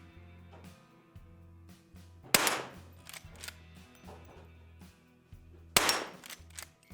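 Two shots from a Rossi 92 lever-action rifle chambered in .44 Magnum, firing .44 Special loads, about three and a half seconds apart, each trailing off in a short echo, with lighter clicks between them. Background music plays underneath.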